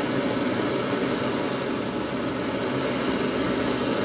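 Gas blowtorch flame burning with a steady, even hiss as it heats a free-cutting mild steel test piece to red heat for case hardening.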